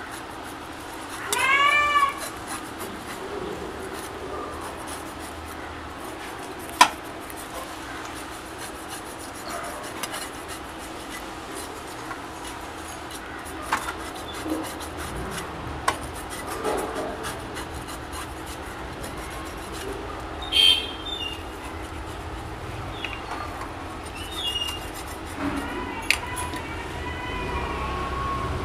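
A cleaver scraping and rubbing over a whole pomfret as it is scaled and cleaned, a steady rasping broken by a few sharp knocks of the blade. A short high-pitched call sounds about two seconds in, with fainter ones near the end.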